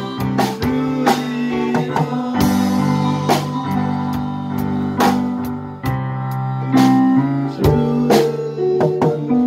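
Live band of drum kit, electric bass, piano and guitar playing an instrumental passage: held chords and bass notes, punctuated by drum and cymbal hits.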